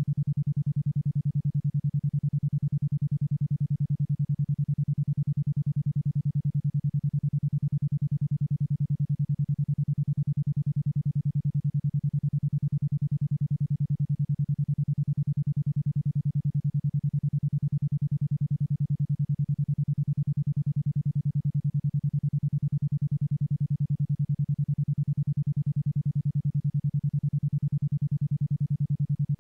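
A 10.2 Hz isochronic tone: a single low synthesized tone switched on and off about ten times a second, steady and unchanging.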